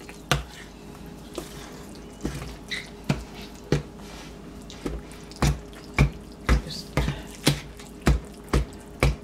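A fork stirring and mashing wet bread dressing soaked in broth in a large stainless steel bowl, breaking up the lumps of bread. It makes a run of sharp clicks and wet taps as the fork strikes the bowl, scattered at first and then about two a second in the second half.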